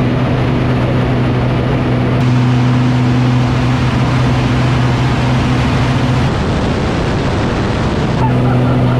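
An engine running steadily with a low drone over a noisy rush; the drone drops out for about two seconds past the middle, then returns.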